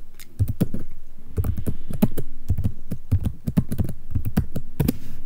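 Typing on a computer keyboard: quick, irregular keystrokes as a terminal command is typed.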